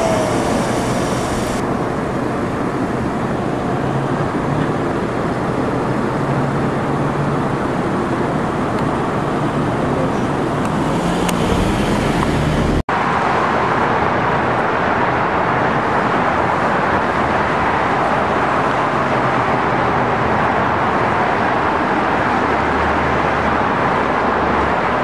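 Road traffic noise: a car moving through city streets with a low engine hum. After an abrupt cut about halfway through, the steady noise of multi-lane freeway traffic follows.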